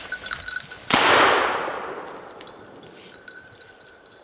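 A single black-powder muzzleloader shotgun shot about a second in, its report rolling away over a couple of seconds.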